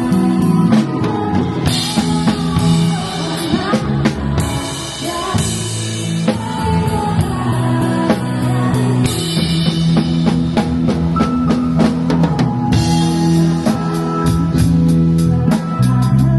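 Live rock band playing, with a drum kit (bass drum, snare and rimshots) driving under sustained guitar and keyboard notes; the drum strokes come in a fast, even run near the end.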